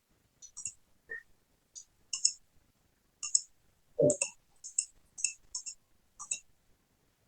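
Computer keyboard keys and mouse buttons clicking in short, irregular taps, about a dozen, many in quick pairs, with one duller thump about four seconds in.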